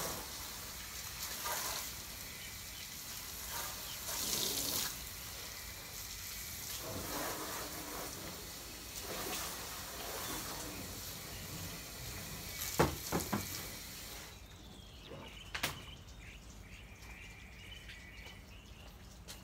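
Water running and splashing over a car being washed, swelling up every second or two. A couple of sharp knocks come near the end, and the water stops about three-quarters of the way through.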